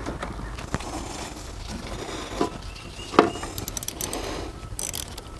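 Scattered metal clicks as the negative ground cable terminal is fitted back onto a truck battery post with a hand tool, the loudest a sharp clink with a short ring about three seconds in; a quick run of clicks near the end.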